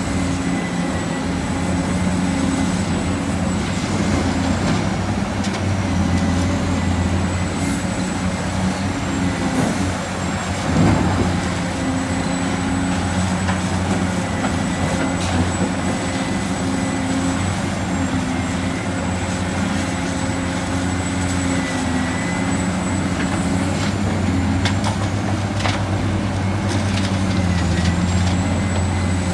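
Heavy diesel engine of construction machinery running steadily under load, with a thin high whine over it. A single clunk sounds about eleven seconds in.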